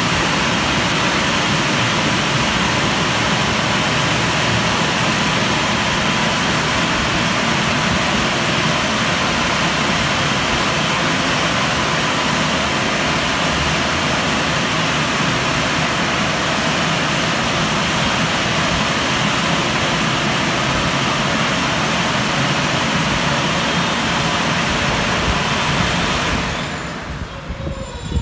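WashTec SoftWash rollover car wash gantry running as it travels over the car, with a steady, loud rushing noise. Near the end the rush drops away sharply, leaving faint high squealing tones.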